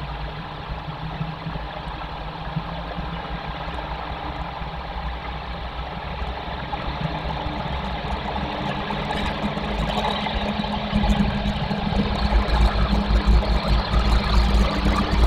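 Steady rumbling outdoor noise on a nest-box webcam microphone, growing louder in the second half, with light crackling and buffeting toward the end.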